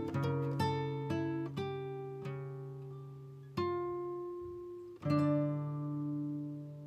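Background music on acoustic guitar: single plucked notes ringing and fading, with two fuller struck chords about three and a half and five seconds in that are left to ring.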